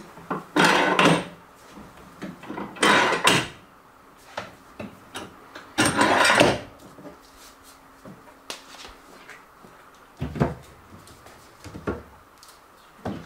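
Metal bench clamps being worked and plastic firework-shell hemispheres handled: three short bursts of scraping and clattering, then a few light knocks near the end.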